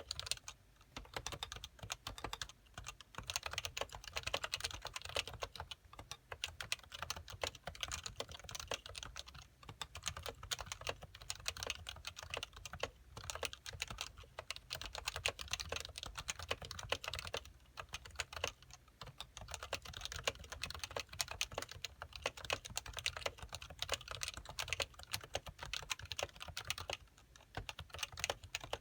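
Steady fast typing on a Happy Hacking Keyboard Professional (Pro1) with stock, unsilenced 45 g uniform Topre switches: a dense run of keystrokes broken by a few brief pauses.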